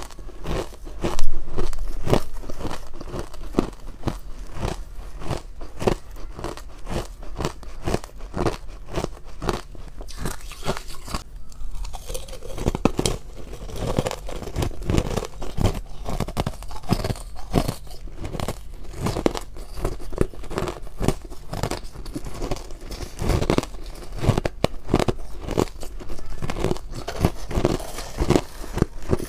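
Powdery ice being bitten and chewed in the mouth: a dense run of crisp crunches, the loudest about a second in. A metal spoon scrapes and scoops through the ice in a plastic tub between bites.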